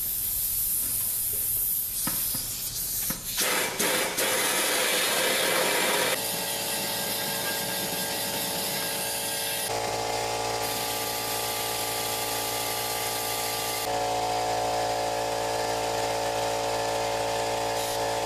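Compressed air blown through a rusted steel mini bike gas tank to drive out rinse water. It starts as a hiss and turns rough a few seconds in, then from about six seconds becomes a steady humming drone of several tones, which shifts to a new pitch twice.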